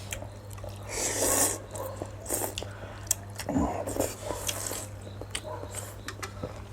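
Eating chicken thukpa noodle soup: several short slurps with chewing and small mouth and utensil clicks between them, over a steady low hum.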